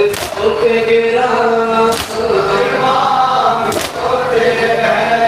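Men chanting a nauha, a Shia mourning lament, in unison, with the crowd's matam (chest-beating) landing together as three sharp slaps about two seconds apart.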